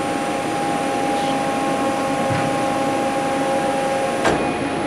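CNC metal-processing machine running with a steady mechanical hum and whine, a few faint ticks, and one sharp metallic clunk about four seconds in.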